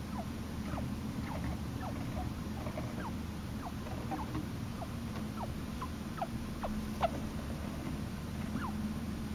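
A dozing baby chinchilla making a run of short, quickly falling peeps, about two a second. One sharp click comes about three-quarters of the way through.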